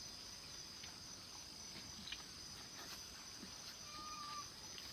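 Faint steady chorus of insects such as crickets, with a short, clear, high call about four seconds in.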